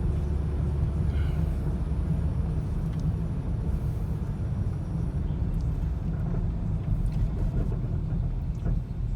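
Steady low rumble of a 2006 Volvo XC90's 2.5-litre turbocharged five-cylinder engine and road noise while driving, heard from inside the cabin.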